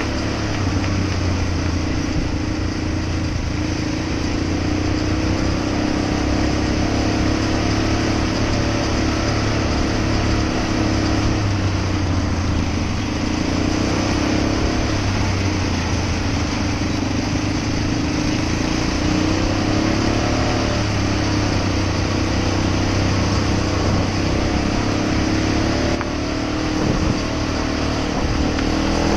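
ATV engine running steadily at a cruising pace, its note rising and falling only slightly, with road and wind noise.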